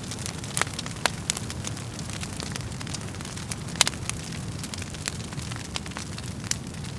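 Wood fire burning in a fireplace, crackling with many irregular sharp pops over a steady low rumble of the flames; the loudest pop comes about four seconds in.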